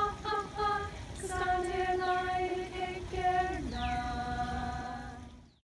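Four women singing unaccompanied in harmony. Short notes give way to long held notes, with a downward slide about two-thirds through, and the closing chord is held before it fades out.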